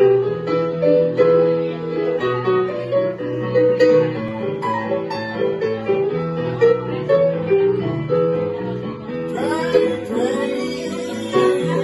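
Digital stage piano playing a rhythmic blues/rock-and-roll accompaniment. A man's singing voice joins about nine seconds in.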